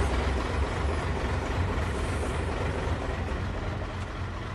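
Hino 500 dump truck's diesel engine idling, a steady low rumble heard inside the cab.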